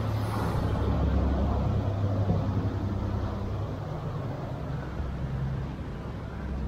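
Canal express boat's engine running with a steady low hum over the rush of its churning wake, slowly getting quieter as the boat moves away.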